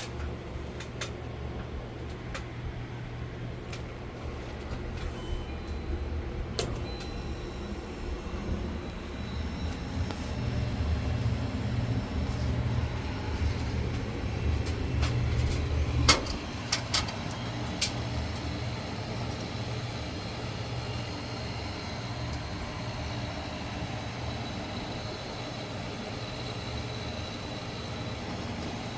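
Woosung commercial refrigerator running with its newly replaced fan motor: a steady low hum with a faint high whine. Several sharp clicks sound over it, the loudest about sixteen seconds in, after which the hum is a little quieter.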